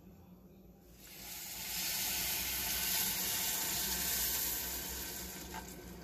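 Milk poured into a glass bowl of freshly microwaved, ghee-roasted semolina, hissing and sizzling as it hits the hot mixture. The sizzle starts about a second in, swells, then fades away toward the end.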